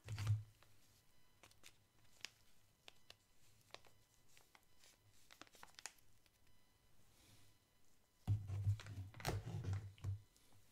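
Paper pudding-mix sachet crinkling as it is handled, with scattered light taps and clicks. There is a short louder rustle at the very start, and a longer, louder stretch of crinkling about eight seconds in as the sachet is set down.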